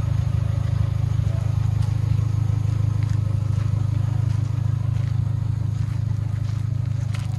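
Engine of a modified off-road SUV idling steadily, a low even rumble, with a few faint clicks near the end.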